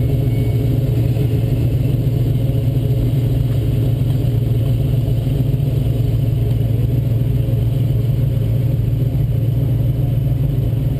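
Turbocharged 2007 Ford Mustang 4.0-litre V6 idling steadily, a low, even drone heard close up through the hood.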